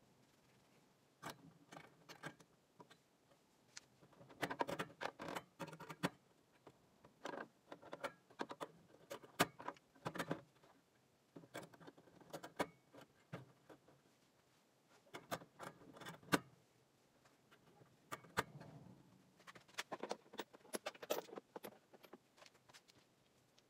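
Chrome sockets clinking and clicking as they are pulled off and pushed onto metal socket rails in a steel toolbox. The sharp taps come in clusters with short pauses between them.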